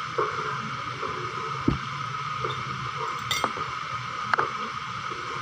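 Chicken feet cooking in a wok over a portable gas stove's burner: a steady sizzling hiss with a handful of short pops and spatters.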